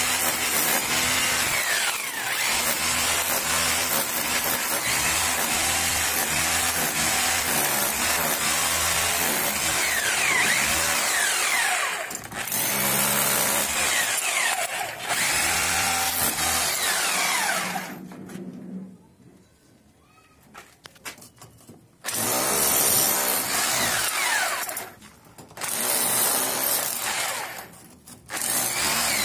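A 26 mm hammer rotary drill in chisel mode, its flat chisel bit hammering into a brick wall to cut a groove. The rapid hammering runs with several short stops and one pause of about three seconds past the middle before it starts again.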